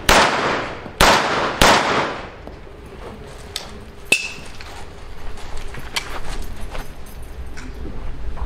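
Three gunshots in quick succession, the second about a second after the first and the third about half a second later, each ringing out with a long echo. Then come a few light clicks and a short metallic ping about four seconds in.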